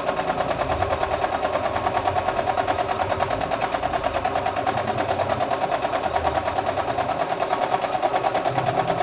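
CNY E960 multifunction embroidery/sewing machine sewing an automatic buttonhole stitch, running with a rapid, even rhythm of stitches.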